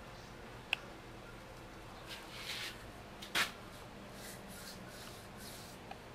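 Soft, quiet swishes of a paintbrush stroking paint along a window frame, with two light clicks, the louder about three and a half seconds in.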